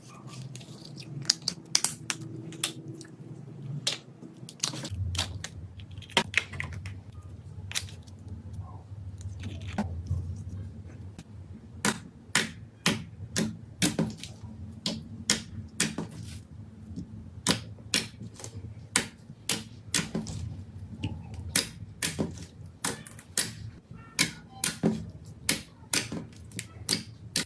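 Slime being pressed and worked by hand, giving a run of sharp clicks and pops, about one or two a second.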